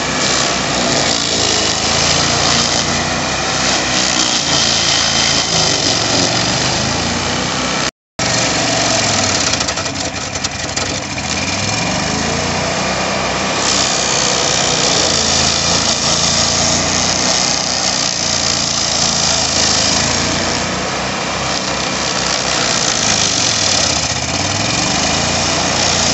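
Vermeer S800TX mini skid steer's engine running under load while the Branch Manager 38 Special hydraulic stump grinder wheel grinds into a large maple stump: a steady, loud mix of engine and cutting-wheel noise. The sound breaks off for a split second about eight seconds in.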